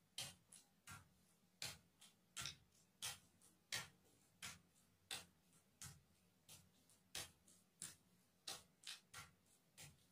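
Faint, irregular crackles of a sheet of paper under bare feet treading on it, one to two a second.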